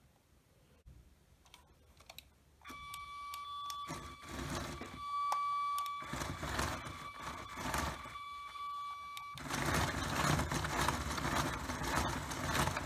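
Lego locomotive's electric motor and gear train running, its driving wheels spinning on the rollers: a steady high whine over a whirring drive that swells and fades. About ten seconds in the whine drops out and the drive turns to a louder, steadier whir.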